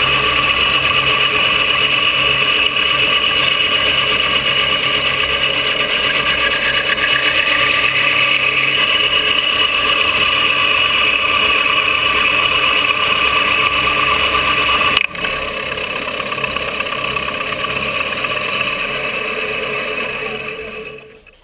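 Milling machine spindle running with an end mill cutting the trigger pocket of an EP Armory 80% AR-15 lower, a steady mechanical whine. About fifteen seconds in the sound steps down suddenly, then dies away near the end.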